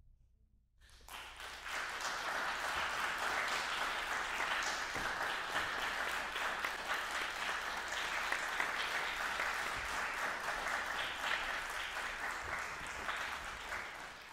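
Audience applauding. It starts about a second in, out of near silence, and holds steady.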